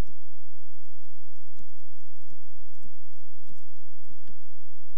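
Computer keyboard keys clicking one at a time as a password is typed: about eight slow, unevenly spaced keystrokes over a steady low hum and hiss.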